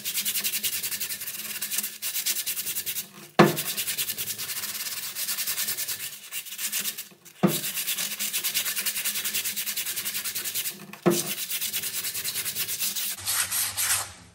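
Coarse 60-grit sandpaper rubbed in quick, even strokes on the rusty metal of a VW Polo's rear drum brake, roughening the braking surface for better grip. The sanding comes in three long runs, each broken by a brief pause and a knock.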